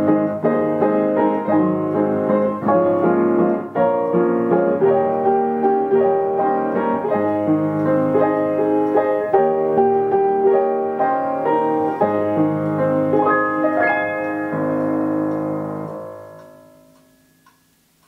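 Yamaha upright piano playing a tune, closing on a final chord about 14 seconds in that rings and dies away over the next few seconds.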